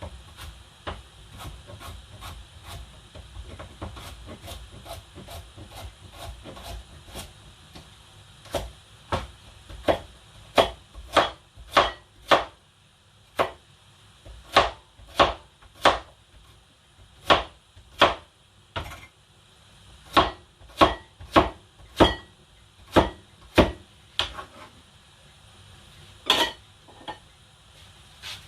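Knife chopping on a wooden cutting board: quick light taps at first, then a long run of louder, steady chops about one to two a second.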